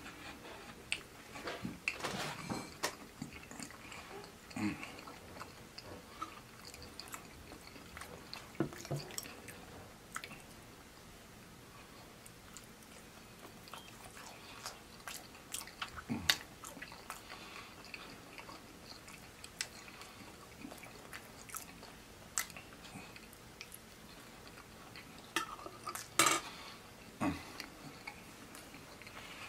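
Eating sounds: chewing chicken nuggets, with scattered short clicks from a fork against the food and containers.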